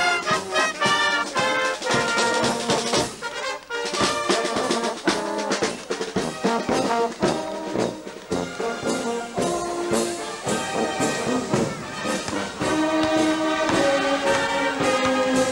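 Brass band playing a march while marching past, with saxophones, trumpets and horns over a steady drum beat.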